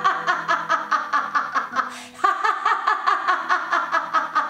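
A woman laughing hard on an open "ah" vowel in rapid, even "ha-ha-ha" pulses, about five a second. It is a deliberate laughter-yoga laugh, in two long runs with a breath between them about two seconds in.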